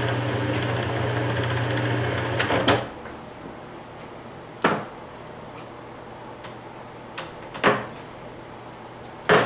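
Webb WL435 gap lathe running with a steady hum, stopping abruptly about three seconds in. Then the headstock speed-change levers clunk into new positions, three sharp knocks a few seconds apart.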